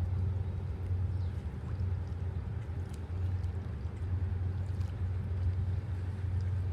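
Steady low drone of a cargo ship's engine running.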